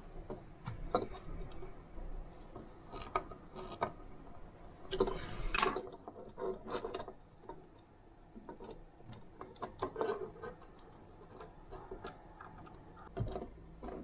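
Light clicks, taps and scrapes of metal and plastic as Schuko socket inserts are screwed and fitted onto a metal mounting frame. The sounds come irregularly, with the busiest scraping about five seconds in.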